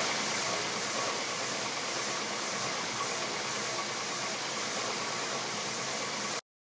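Stationary edge belt sander running with the edge of a plywood template pressed against the belt, a steady sanding noise as the template's rough edges are trued smooth. The sound cuts off suddenly near the end.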